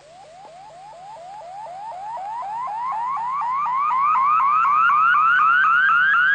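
Synthesized electronic sound effect: a rapid train of short rising chirps, about four a second, climbing steadily in pitch and growing louder throughout.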